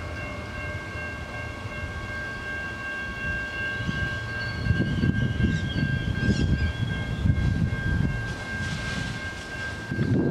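Adelaide Metro 4000 class electric train approaching slowly, with a steady high whine. A low rumble builds from about four seconds in as it draws nearer.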